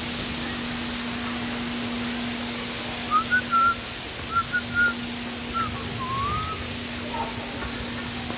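Someone whistling a short phrase: two quick groups of three notes, then a single note and a rising swoop, over a steady low hum and hiss.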